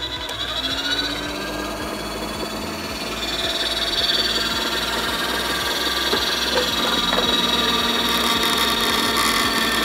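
Мастерица electric meat grinder running with its drum grater attachment, shredding carrots: a steady motor whine under a rasping grating noise that grows louder about four seconds in as carrots are pushed through.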